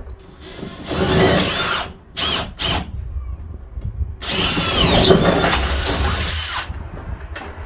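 Power drill boring holes through a van floor for the LPG tank's mounting bolts. It runs in a burst of about a second, two short blips, then a longer run of about two and a half seconds.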